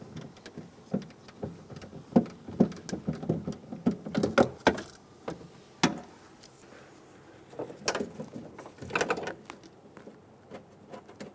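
Ratchet and 11mm socket clicking and knocking against the sheet metal inside a car door while the door-handle nut is undone, in irregular bursts of sharp clicks.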